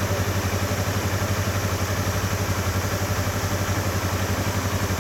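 Yamaha YZF-R25's 249 cc parallel-twin engine idling steadily.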